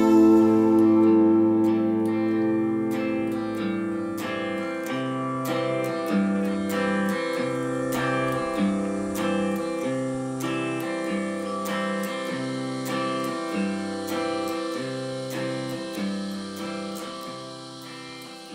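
Instrumental outro of a country-rock song: picked guitars over an alternating bass line, fading out steadily.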